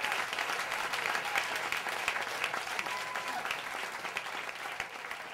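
Live audience applauding, dense clapping that slowly dies down.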